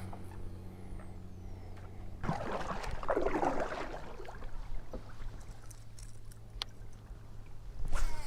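Water sloshing and splashing against a kayak for about two seconds, after a steady low hum that fades out about two seconds in, with a few light knocks and a short splash near the end.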